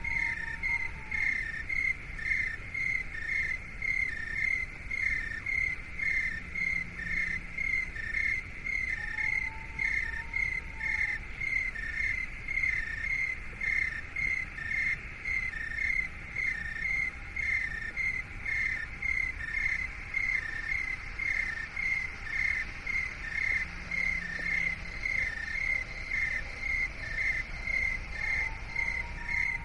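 Steady insect-like chirping, short pulses about two a second alternating between two close pitches, with a fainter whistle-like tone that rises and falls about every ten seconds.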